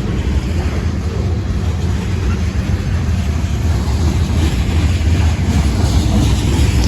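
Freight train rolling past, a steady low rumble that builds slightly toward the end, with wind buffeting the microphone.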